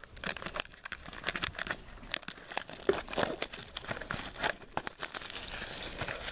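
Clear plastic shrink wrap being torn and crinkled off a sealed trading-card hobby box, a run of irregular crackles.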